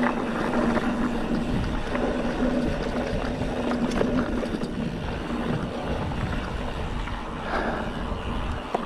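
Mountain bike riding along a rough dirt and gravel track: wind rushing over the microphone and tyres rolling on loose dirt, with a few knocks from the bike. A steady hum runs under it until about six seconds in.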